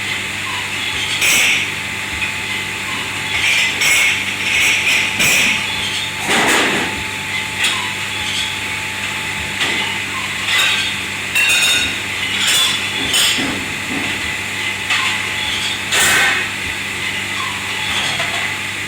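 Dishes, pans and utensils clattering and clinking at irregular moments over the steady hum and hiss of commercial kitchen machinery.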